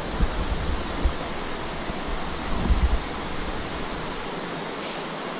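Shallow river current rushing steadily as a constant hiss, with a few dull low thumps near the start and again about two and a half to three seconds in.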